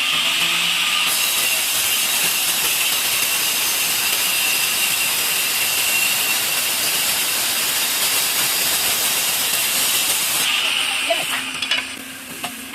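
Electric tile-cutting machine's blade cutting through tile: a loud, steady grinding hiss with a high whine. Near the end the cutting noise fades away, leaving the motor running with a low hum.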